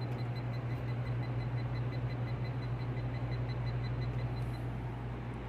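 Voltage tester pen beeping rapidly, about five short high beeps a second, which signals voltage on the ungrounded sound equipment; the beeping stops near the end. Under it runs a steady low electrical hum.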